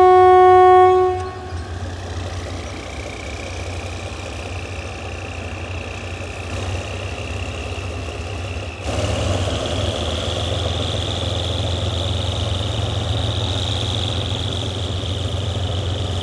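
Diesel locomotive of a passenger train, GE class GEK 4038, blowing its horn once for about a second at the start. It then rolls on with a steady low engine rumble and a high whine that slowly rises in pitch and grows louder about nine seconds in.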